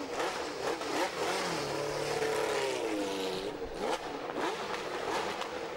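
Formula One car engines running at low speed on the starting grid and being blipped, their pitch rising and falling.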